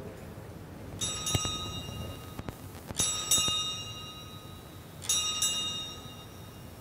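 Altar bells rung three times, about two seconds apart, each ring a quick double stroke that fades away. They mark the elevation of the consecrated host at Mass.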